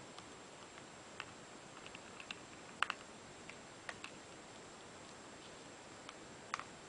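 Light, irregular plastic clicks and taps from in-ear earphones being handled, about ten in all, the loudest about three seconds in and two close together near the end, over a faint steady hiss.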